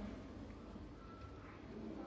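Quiet room tone with faint rustling of cotton macrame cord being wrapped around a wooden dowel by hand.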